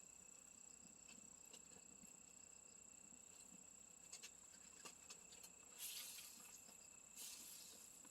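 Faint, steady high-pitched trilling of insects such as crickets, with a few faint clicks and two brief hisses near the end.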